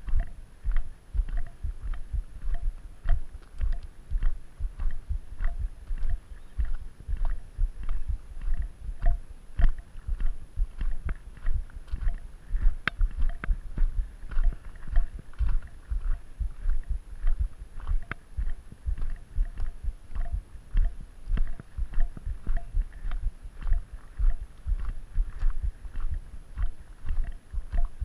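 A hiker's footsteps on a gravel road at a steady walking pace, about two steps a second, each step a low thud with a crunch of gravel.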